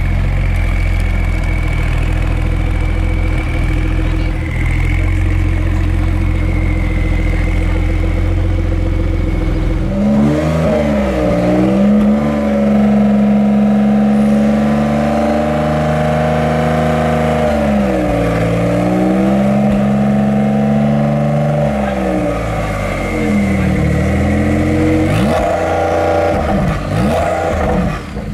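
Gemballa Marsien's twin-turbocharged 911 Turbo S flat-six running: it idles steadily for about ten seconds, then the revs rise and are held for several seconds, dip, rise and hold again. Near the end come a few quick rev blips.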